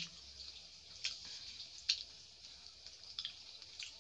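Close-up eating sounds: wet mouth smacks and clicks while chewing a mouthful of rice and fish curry, a few sharp ones about one and two seconds in and again near the end, over faint room tone.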